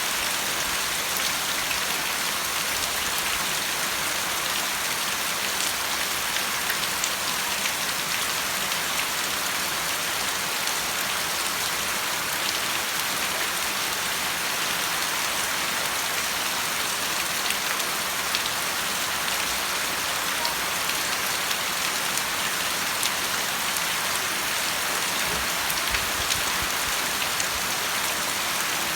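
Steady rain falling: a continuous hiss with many small drop ticks scattered through it.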